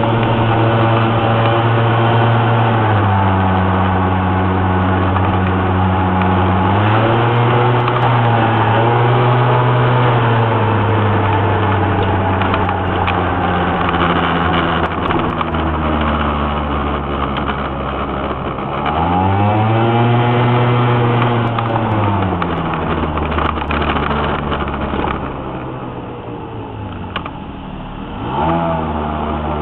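Engine of a small old vehicle heard from inside the cab, pulling under load on a hill climb, its pitch stepping down and rising again with throttle and gear changes. About two-thirds through it revs up and back down, then runs quieter before picking up again near the end.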